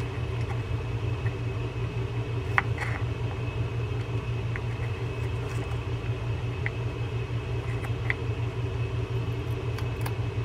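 Steady low mechanical hum, with a few faint, light clicks spread through it as the small metal drag washers and main gear of a fishing reel are handled.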